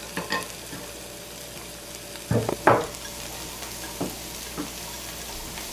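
Diced onion and minced garlic sizzling in bacon fat in a frying pan, stirred with a utensil. A steady sizzle runs under several short scrapes and knocks of the utensil against the pan, the loudest a pair about two and a half seconds in.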